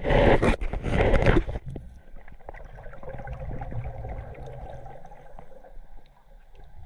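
Water sloshing and splashing over a camera held at the waterline for about the first second and a half. Then the quieter, muffled hiss of underwater ambience with scattered faint clicks.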